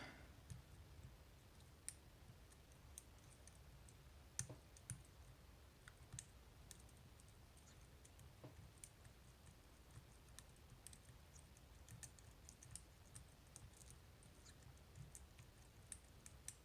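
Faint, irregular small clicks of a lock pick working the pin stacks of an Assa 600 pin-tumbler lock held under light tension, its gin-bottle spool drivers clicking as they are lifted.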